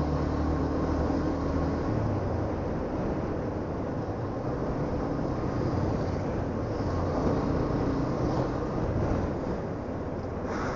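Motorbike engine running steadily on the move, with wind rushing over the microphone of a helmet-mounted action camera.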